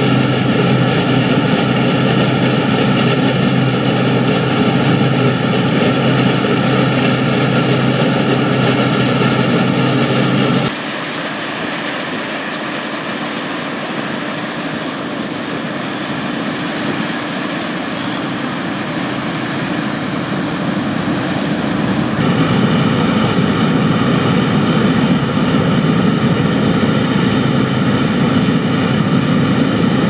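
Volvo BM S830 combine harvester working in barley: its engine and threshing machinery running steadily, a loud even drone. It turns fainter and thinner from about a third of the way in, then is loud and close again for the last third.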